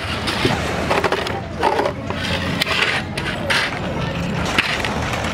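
Skateboard wheels rolling over street pavement in a steady grinding rush, with a few brief knocks of the board.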